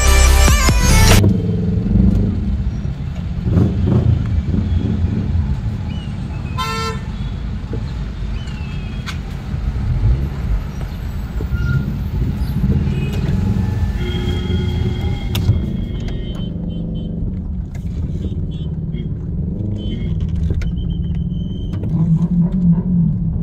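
City road traffic heard from a moving car: a steady low engine and road rumble, with a short car-horn toot about seven seconds in and a few thin horn beeps later on.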